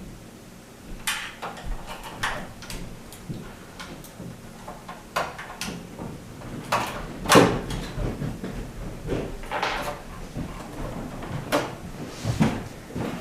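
Irregular clicks, knocks and short scrapes of hard objects being handled, with a louder knock about halfway through.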